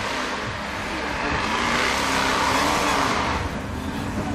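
Off-road vehicles running in a drag heat: engine and tyre noise swells over about two seconds and then fades, as of vehicles passing.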